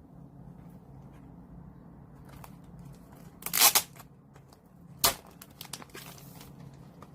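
Album packaging torn open by hand: one loud rip about halfway through, a sharp snap a second and a half later, then a few small crinkles.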